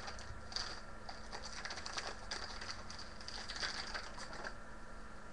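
AFL trading cards being flicked through and handled, a run of light, irregular papery clicks and rustles.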